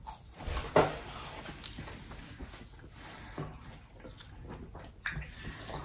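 Close-up eating sounds: quiet chewing of french fries and wet mouth noises, with a sharper smack about a second in and another softer one near the end.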